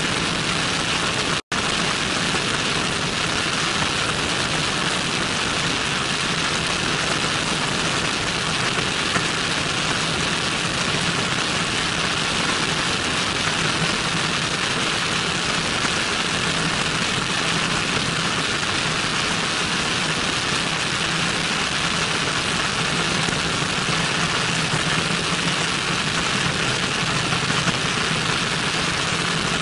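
Cessna 172N in flight: its four-cylinder Lycoming engine and propeller drone steadily under a heavy rush of wind over an externally mounted camera. The sound cuts out for an instant about a second and a half in.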